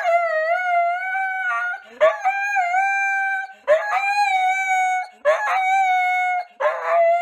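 Husky howling: a string of long howls, each about a second and a half, held at a steady pitch with short breaks between them.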